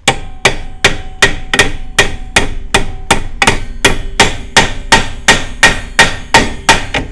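Hammer driving the steel kingpin cotter into an MG TC front axle: a steady run of about three blows a second, each with a metallic ring.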